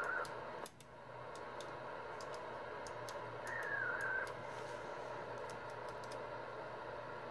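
Kenwood TS-120S HF transceiver's receiver hiss from its speaker, with faint crackling clicks and a short wavering whistle about three and a half seconds in. The hiss drops out briefly just before the first second.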